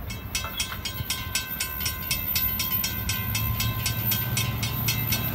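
Railroad crossing bell ringing in quick, evenly spaced strikes, about four or five a second. A low rumble of passing car traffic grows from about three seconds in.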